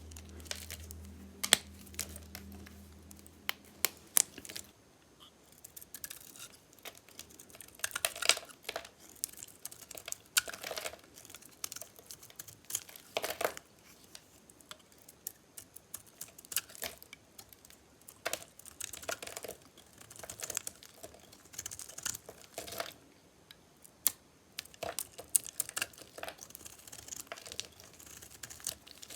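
Blade cutting into dry, metallic-painted soap: irregular crisp crackling and scraping strokes with sharp clicks, some strokes in quick clusters.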